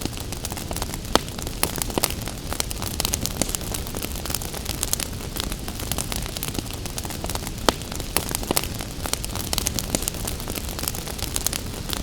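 Wood fire crackling in a fireplace, with a steady run of small sharp pops and two louder pops, one about a second in and one about two-thirds of the way through, over a steady hiss of rain.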